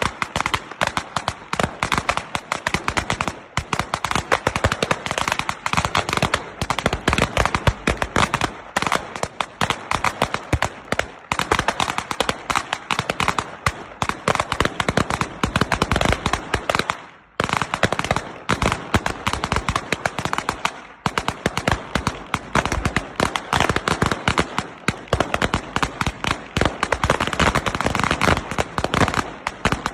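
A string of firecrackers going off in rapid, continuous bangs, with a brief break about seventeen seconds in.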